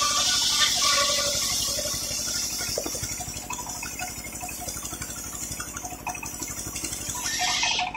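Sawmill circular saw blade ripping through a teak log: a loud hissing rush of sawdust for the first two seconds or so that fades as the cut runs out, over the steady pulsing of the engine driving the blade. Near the end the hiss swells again and breaks off sharply.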